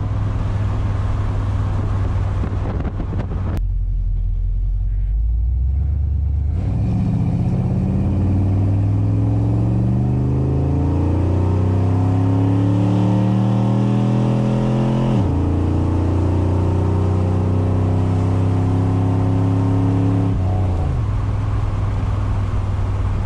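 1969 Chevrolet Impala engine through a freshly fitted 3-inch dual exhaust with Summit Racing mufflers, heard from inside the cabin under hard acceleration. Its pitch climbs steadily, drops suddenly at an upshift, climbs again, drops once more near the end and then runs steady.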